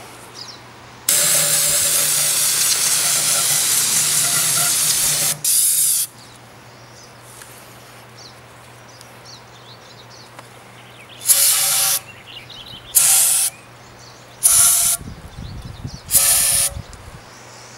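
Aerosol spray can of cleaner hissing as it washes aluminum shavings off a sanded intake manifold: one long spray of about five seconds with a brief break near its end, then four short bursts about a second and a half apart.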